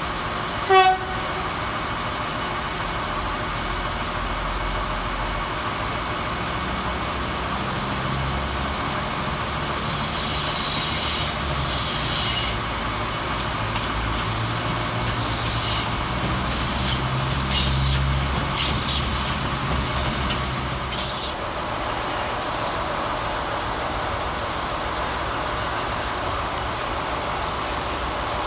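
A short toot on a train horn under a second in, then an Irish Rail 22000 Class diesel railcar moving through the station throat: its underfloor engine rumbling and its wheels squealing on the curves and points, loudest around the middle, before settling back to a steady station hum.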